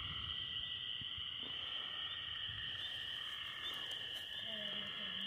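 Steady, unbroken high-pitched chorus of night insects.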